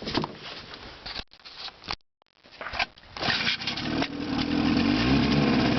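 Restored 1955 Johnson 5.5 hp two-cylinder two-stroke outboard being started: irregular rattling for the first two seconds, a short break, then the engine catches about three seconds in and settles into a steady run.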